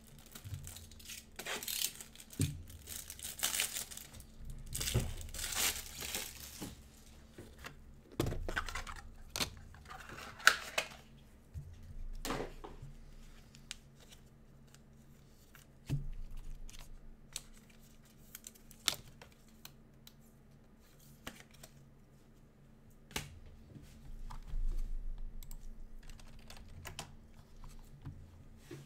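Plastic card sleeves and wrappers crinkling and rustling in several bursts over the first ten seconds or so, then sparse, scattered clicks of a computer keyboard and mouse.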